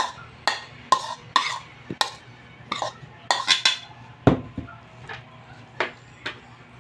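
Bowls knocking together as a tipped bowl is tapped against the rim of a mixing bowl to shake out its contents: about a dozen sharp, irregular knocks, with one heavier thump about four seconds in.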